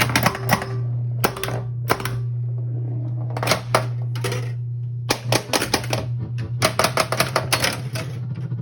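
Bally Xenon pinball machine in play: sharp mechanical clacks of its flippers, bumpers and solenoids, singly at first, then in quick rattling runs from about five seconds in, over a steady low hum.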